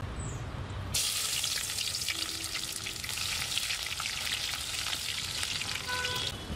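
Food dropped into hot oil in a wok over a wood fire, sizzling loudly as it fries, with a metal spatula stirring it. The sizzle starts suddenly about a second in and stops abruptly near the end.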